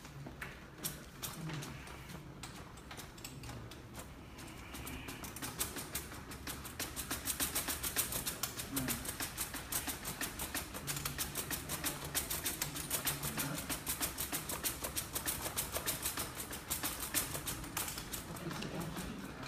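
Pipe-frame cart with roller-conveyor rails rolling across the floor, rattling in a fast, even clicking of several ticks a second. The clicking is densest through the middle.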